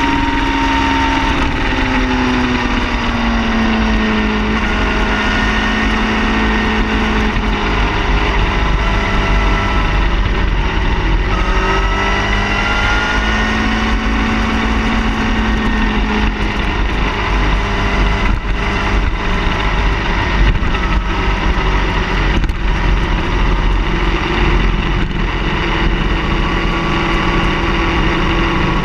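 Car engine running continuously, its pitch sinking slowly over the first few seconds and climbing again about twelve seconds in, with scattered short knocks in the second half.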